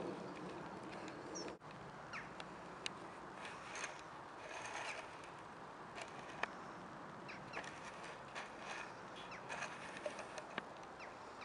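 Open-field ambience: a faint steady outdoor hiss with scattered short, high chirps and clicks, typical of small birds calling.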